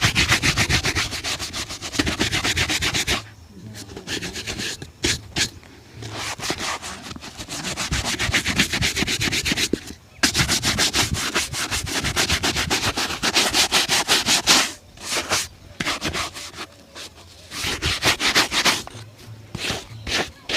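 A shoe being buffed with rapid back-and-forth strokes, several a second. The strokes come in spells broken by short pauses.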